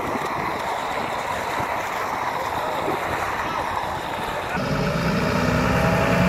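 Wind rushing over the microphone. About two-thirds of the way in, the sound cuts to the steady hum of an idling truck engine.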